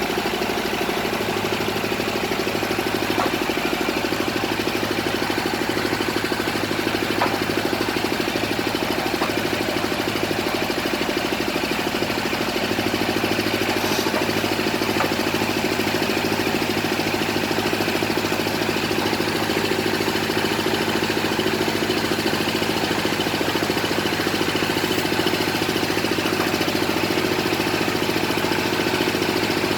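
Engine of a bored-pile drilling rig running steadily, with a slight shift in its note about halfway through.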